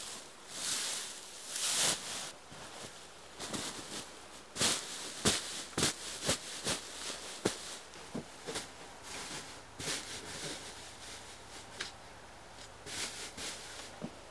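Dry hay rustling and crackling as handfuls are stuffed into a cloth sack, then a series of sharp knocks and taps.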